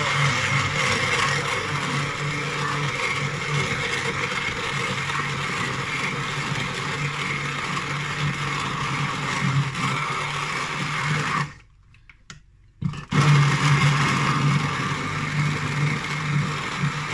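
Hand-held Bamix immersion blender running steadily with its blade in a glass jug of raw apple and carrot pieces in water, chopping them into a smoothie. Near the end it cuts out for about a second and a half, then starts again.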